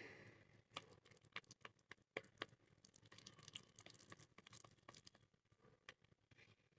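Near silence, with faint irregular clicks and taps of hands working a thick marble powder and glue paste.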